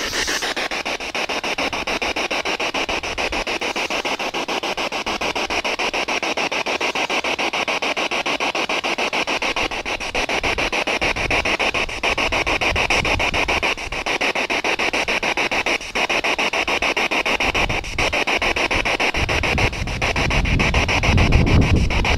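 A spirit box (a radio that sweeps rapidly through stations) running, giving a steady hiss of radio static chopped into rapid, regular pulses. A low rumble comes in near the end.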